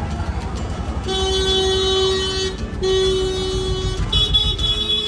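Vehicle horns honking in a street traffic jam: three long, steady horn blasts follow one another from about a second in, the last a higher-pitched horn. A low rumble of idling engines runs underneath.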